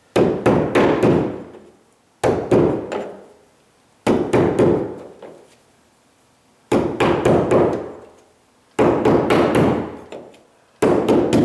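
Sharp hammer-like blows in quick runs of three or four, repeated six times about two seconds apart, each run ringing briefly in the room. This is a carpet installer striking the carpet at the baseboard to reattach it to the tack strip.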